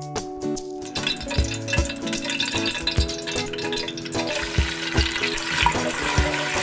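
Sliced onions sizzling in hot oil in an aluminium pressure cooker while being stirred with a wooden spoon; the sizzle starts about a second in and grows louder after the onions go in. Background music plays throughout.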